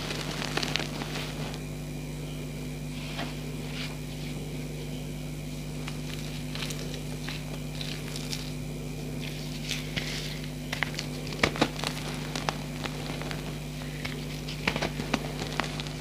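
Reformed gym chalk blocks crumbling in squeezing hands: irregular soft crackles and crunches as the powdery chalk breaks apart, with louder clusters of sharp cracks around the middle and near the end. The chalk was reformed with gel, so it breaks in a messy crumble. A steady low hum runs underneath.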